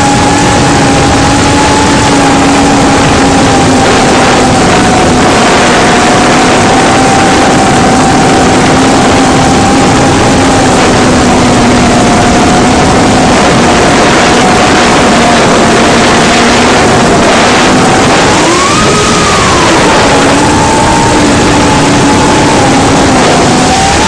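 FPV quadcopter's brushless motors and propellers heard through its onboard camera: a steady motor whine under loud rushing noise. About three quarters of the way through, the whine briefly climbs in pitch and falls back as the throttle is pushed.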